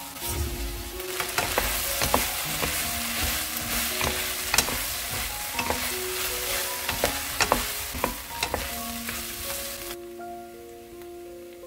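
Spam, onion and green chili sizzling in a frying pan as they are stir-fried, with the utensil knocking and scraping against the pan many times. The sizzle cuts off suddenly about ten seconds in.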